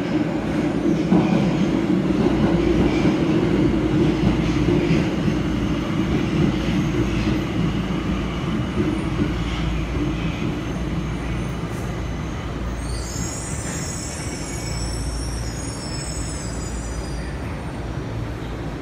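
Ginza Line subway train running unseen in the tunnel, heard from the underground platform as a steady low rumble that is loudest in the first few seconds and slowly eases. A high, wavering metallic wheel squeal comes in for about four seconds past the middle.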